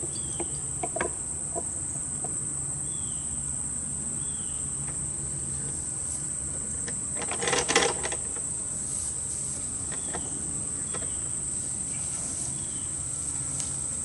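Steady, high-pitched drone of insects in the summer grass. About halfway through there is a brief clatter of the wooden hive box being handled.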